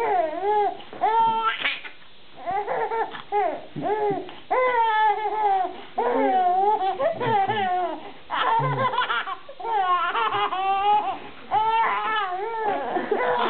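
A baby laughing hard in a fit of giggles: repeated high-pitched laughs in bouts of a second or two, with short catches of breath between them.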